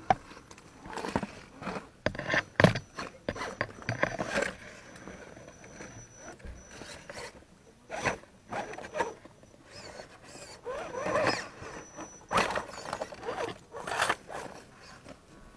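Radio-controlled scale rock crawler climbing over rock: its small electric motor and gearbox whir in short bursts as the throttle is worked on and off, with tyres and chassis scraping over the stone.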